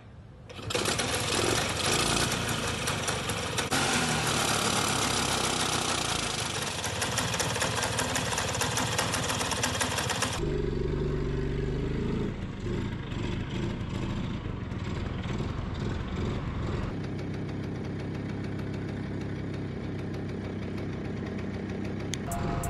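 Vintage Vespa 150 scooter's air-cooled single-cylinder engine running, in three separate clips: first close beside the engine, loud and hissy, then on the move along a street, then again at a lower, steadier level.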